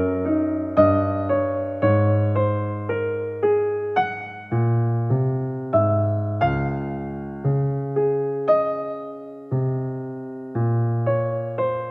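Background piano music: a slow piece of single notes and chords over a bass line, each struck and left to fade, changing about once a second.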